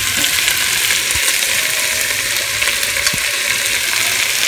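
Ground beef with sliced sausage, tomato and onion sizzling steadily as it fries in a pot, with a spatula stirring through it now and then.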